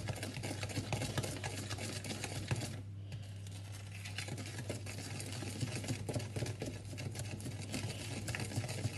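Wooden spoon stirring soft, loosened cake batter of creamed butter, sugar and beaten egg in a clear mixing bowl: quick, busy clicking and scraping of the spoon against the bowl, with a brief pause about three seconds in.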